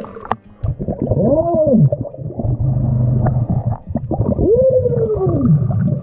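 Sound recorded underwater: two long pitched tones that rise and then fall, one about a second in and one near the end, with a steady low hum between them.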